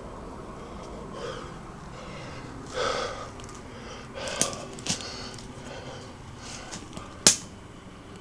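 Close, heavy breathing of a person holding the camera, with a few sharp clicks or snaps, the loudest near the end.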